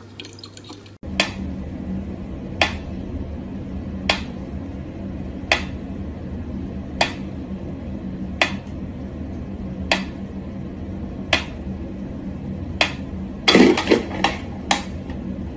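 Mechanical pyramid metronome ticking slowly and evenly, about one tick every second and a half. A louder clatter breaks in near the end.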